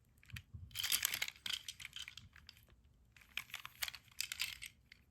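Packaging crinkling and rustling as it is handled, in two main bouts: about a second in and again after three seconds.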